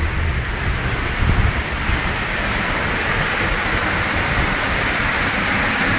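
Düden Waterfall's water falling, a steady rushing noise, with some low rumbling in the first second and a half.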